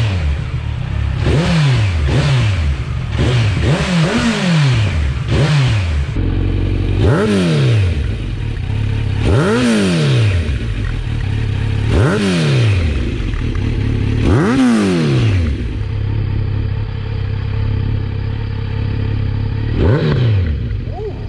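Kawasaki Z900 A2's inline-four engine running loud through an Arrow header with the catalyst removed and an Akrapovic carbon silencer. It is blipped in quick revs, then revved higher four times a couple of seconds apart, then settles to a steady idle with one more rev near the end.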